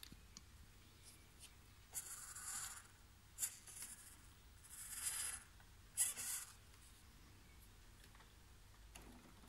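Four short scratchy, rustling scrapes between about two and six and a half seconds in, the third the longest and the last the sharpest.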